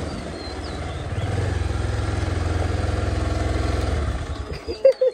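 Motorcycle engine running at low speed, a little louder from about a second in, then dying away and stopping near the end as the bike comes to rest; a sharp knock follows just after it stops.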